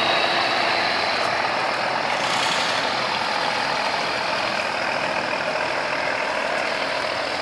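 A cargo barge's engine running steadily, with water rushing and churning along the hull.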